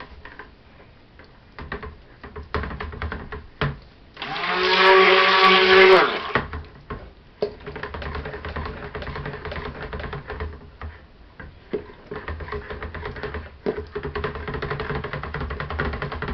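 Electric stick (immersion) blender mixing soap batter in a plastic bucket to bring it to trace. A few knocks first, then a loud two-second burst of the motor about four seconds in, after which it runs steadily at a lower level while being moved through the batter.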